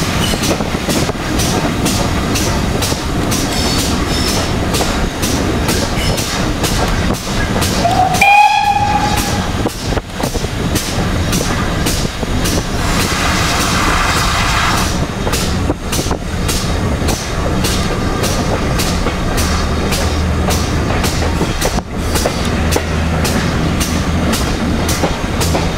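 Steam-hauled train carriage running at speed, with a steady rhythm of wheel clicks over the rail joints and a constant rumble. About eight seconds in, the locomotive's whistle gives one short blast, rising slightly in pitch.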